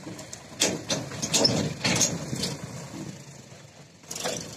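Sonalika tractor's diesel engine running as the tractor pulls away with its tipper trailer raised, uneven with several loud bursts.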